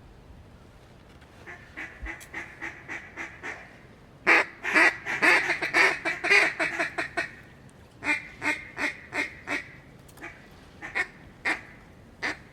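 A duck call blown in rapid runs of mallard-hen quacks to bring ducks in: a softer run, then a long, loud series about four seconds in, then shorter runs and a few single quacks near the end.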